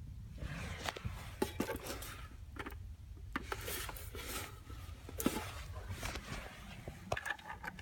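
Irregular rustling and scraping with scattered sharp clicks, over a faint low steady hum.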